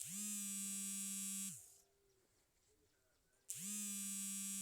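Mobile phone vibrating for an incoming call: two buzzes of about a second and a half each, about two seconds apart, the motor's pitch sliding up as each one starts and down as it stops.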